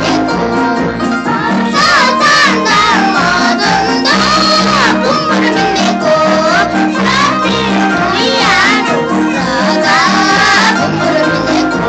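A six-year-old boy singing a solo song, his melody bending and wavering in pitch, over instrumental accompaniment with a steady beat.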